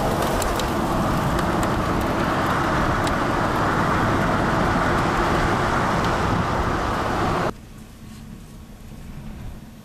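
Wind and rain buffeting the microphone in a thunderstorm: a loud, steady rushing noise with scattered sharp ticks. It cuts off abruptly about three quarters of the way through, leaving a much quieter noise with a faint low hum.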